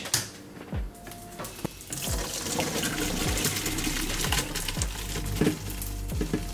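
Boiled pasta and its water poured from a pot into a colander in a sink, the water gushing through from about two seconds in. A background-music beat of soft low thumps runs beneath it.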